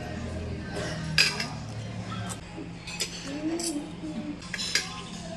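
Cutlery clinking against plates and dishes during a meal, a few sharp clinks about a second apart or more, the loudest about a second in and another near the end.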